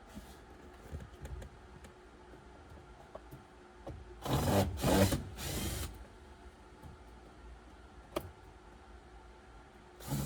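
A small power tool runs in three short bursts about four seconds in, backing out a heater-box bolt. Light clicks and knocks of the tool and parts come before and after, with a louder clunk near the end.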